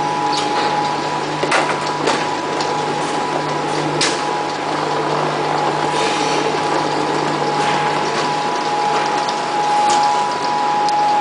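Dumpling packing line with a ten-head weigher and vertical packing machine running: a steady mechanical hum with a steady high whine, and sharp clicks and clatters every few seconds.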